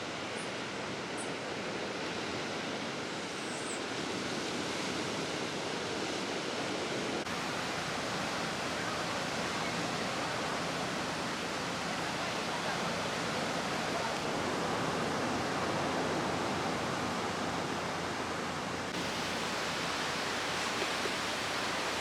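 Steady, even rushing noise of ocean surf, with no single wave crash standing out.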